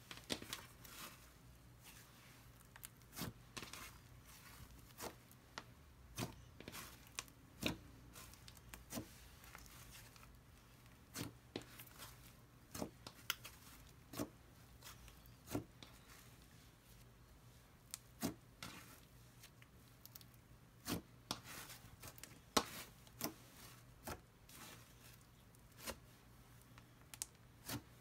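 Hands squishing and stretching a cloud cream slime, giving irregular sharp pops and crackles, about one or two a second.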